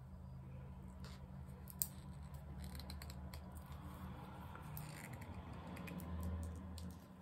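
Light clicks and scrapes of a small plastic bottle being handled and its cap worked, with one sharp click about two seconds in.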